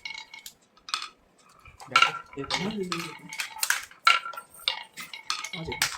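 Small hard objects clinking and clattering: a rapid, uneven string of sharp clicks, each with a short ringing tone.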